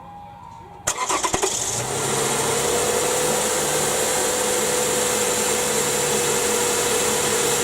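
2007 Toyota Sienna's 3.5-litre V6 being started: the starter cranks briefly about a second in, then the engine catches and settles into a steady idle.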